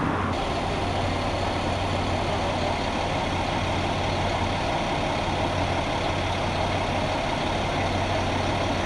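Heavy fire-rescue vehicle's engine idling steadily, a constant low hum with a noisy rumble over it.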